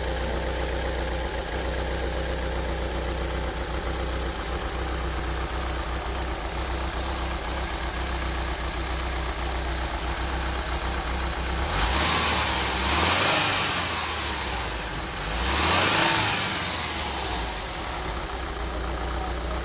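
1985 Volkswagen Vanagon Westfalia's water-cooled 1.9-litre flat-four 'wasserboxer' engine idling smoothly, then revved twice in quick succession about two-thirds of the way through, each time rising and settling back to idle.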